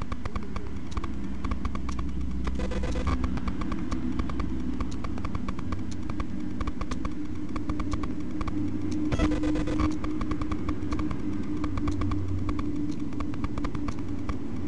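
Motor vehicle engines running: a steady low drone holding one pitch, with a fast light clicking throughout and two brief swells of rushing noise about three and nine seconds in.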